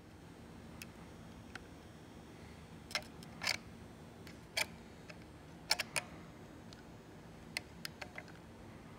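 Irregular small metallic clicks and ticks of needle-nose pliers and a soldering gun tip working the wires on the ignition condenser's terminal of a Kawasaki snowmobile engine's stator as the condenser is unsoldered. There are a few louder clicks about three seconds in and around six seconds, over a faint steady hum.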